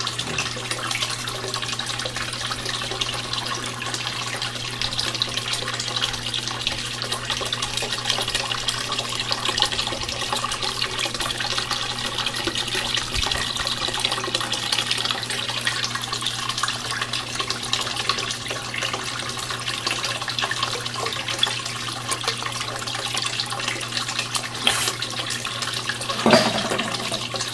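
Water running steadily over the ribbed matting of a cleanup sluice, a continuous rushing splash, with a steady low hum underneath and one brief louder sound near the end.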